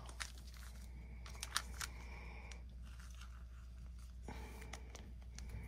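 Faint rustling and a few light ticks of a baseball card being slid into a thin plastic penny sleeve.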